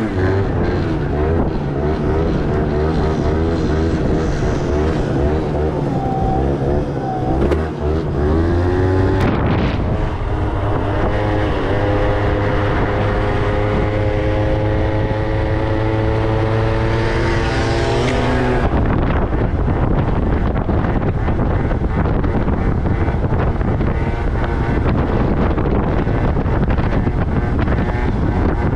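Small two-stroke 50–70cc moped engine revving hard under a stunt rider, its note rising and falling at first, then held high and slowly climbing. About two-thirds through, wind rushing over the microphone takes over and the engine is barely heard.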